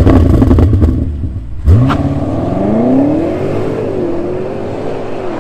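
BMW M5 Competition's twin-turbo V8 through an AC Schnitzer exhaust. A loud burst of throttle dies away at first with a few sharp crackles. Less than two seconds in, the car pulls away hard, its engine note rising and then levelling off as it drives away, slowly getting quieter.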